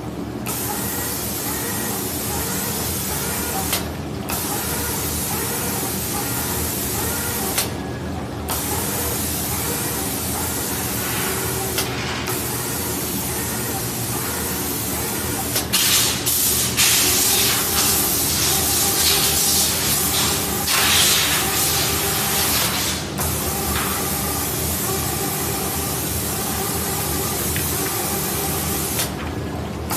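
Automatic air spray gun on a 5-axis reciprocating spray machine hissing as it sprays paint onto photo frames, cutting off briefly every few seconds between passes and louder for several seconds in the middle, over a low hum.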